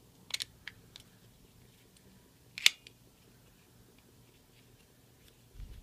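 Small plastic clicks and taps of car-alarm key fob parts being handled and fitted together: a few quick clicks in the first second, one sharper click about two and a half seconds in, then faint ticks and a soft low thump near the end.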